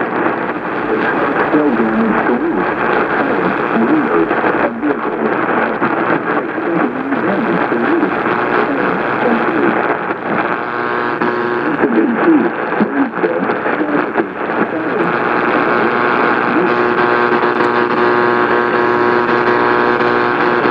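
Low-quality radio broadcast of an emergency alert: an indistinct voice under a constant hiss of static, giving way about sixteen seconds in to a steady buzzing tone.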